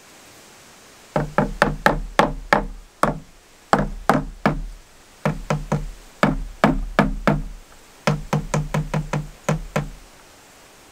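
Rubber mallet knocking on a cracked wooden felloe of an old wagon wheel: runs of quick blows, about three or four a second, starting about a second in and stopping near the end.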